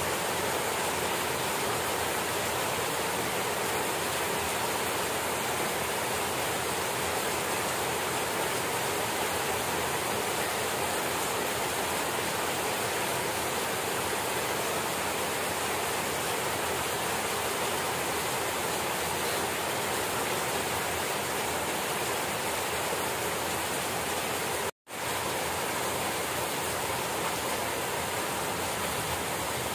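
Heavy rain falling steadily, a dense even hiss. The sound cuts out for a split second about 25 seconds in.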